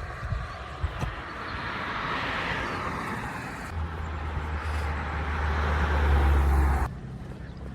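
Ocean surf washing on a beach, swelling and easing, with wind rumbling on the microphone through the middle. The rumble cuts off suddenly near the end.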